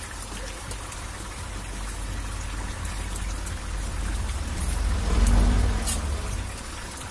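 Bottle gourd and fish curry simmering in a karai, a fine bubbling hiss over a low rumble that swells about five seconds in and then eases.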